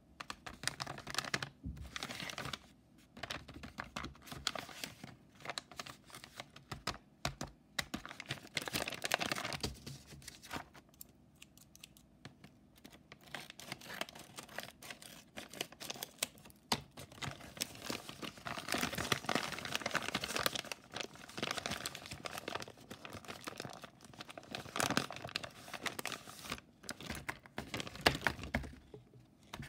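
Handmade paper blind bag crinkling, rustling and tearing in irregular bursts as it is handled and cut open with scissors, with short quiet pauses.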